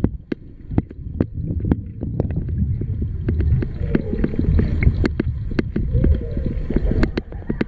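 Water noise picked up by a camera held underwater in a swimming pool: a muffled low rumble with frequent, irregular sharp clicks and crackles.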